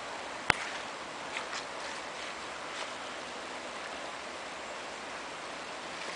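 Steady rushing noise of a creek running in flood. A sharp click about half a second in, with a few fainter ticks after it.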